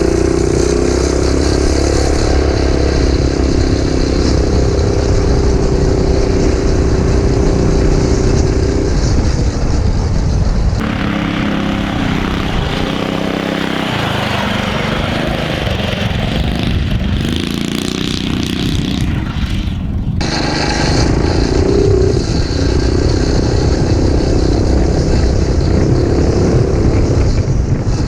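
Small single-cylinder engine of an off-road mini bike running and revving as it is ridden. The pitch rises and falls with the throttle, and the sound changes abruptly twice, as the footage cuts between clips.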